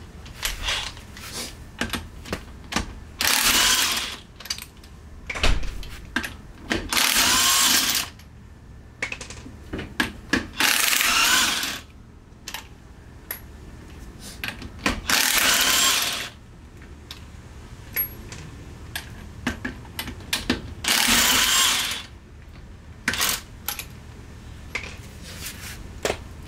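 Cordless impact wrench hammering the lug nuts off a car wheel: five bursts of about a second each, one per lug nut, with short clicks and knocks between them.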